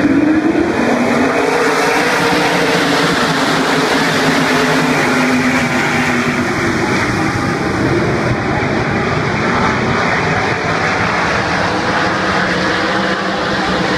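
A field of winged dirt-track sprint cars racing past, their V8 engines making a dense, loud roar with no break. Several engine notes climb in pitch in the first second or two as the pack accelerates down the straight.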